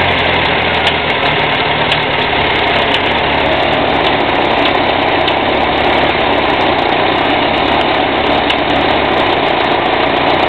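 UZAM 1.5-litre four-cylinder petrol engine idling steadily with a knock from inside the engine.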